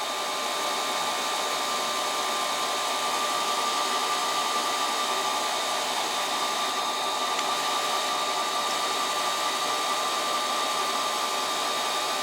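Ceiling fan running steadily at a constant speed: an even whirring rush with a steady high-pitched whine running through it.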